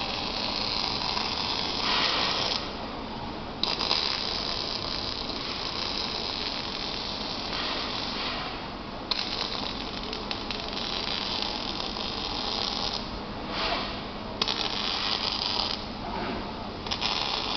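Robotic arc welder's arc crackling steadily in runs of a few seconds, broken by short pauses between welds.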